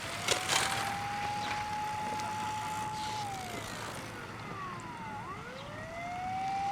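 Fire engine siren wailing. Its tone rises, holds steady for about three seconds, falls away, then climbs again near the end. A fainter, higher siren sweeps down and back up in the middle.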